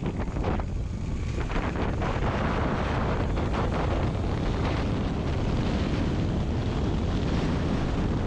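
Wind buffeting the microphone over a motorcycle engine running steadily at road speed.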